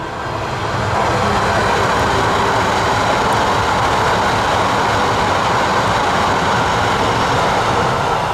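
E3-series Yamagata Shinkansen train passing close by at speed: a steady rush of wheel and rail noise that swells over the first second, holds, and eases slightly near the end.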